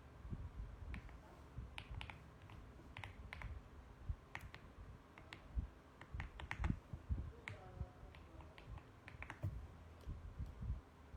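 Mechanical keyboard typing: irregular runs of sharp key clicks with short pauses between them.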